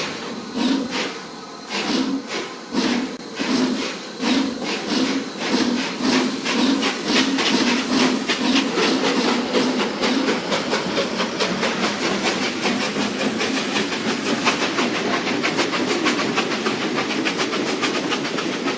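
Steam locomotive pulling away: exhaust chuffs begin about a second apart and quicken steadily into a rapid, even beat, over a continuous hiss of steam.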